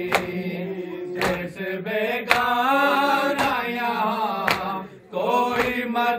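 Male voices chanting a noha (mourning lament), led by one reciter, over hands beating on chests (matam) in a steady rhythm of about one slap a second.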